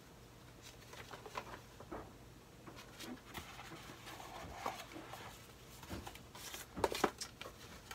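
Paper and a small cardboard box being handled: soft rustling with scattered light taps and clicks, the loudest few near the end.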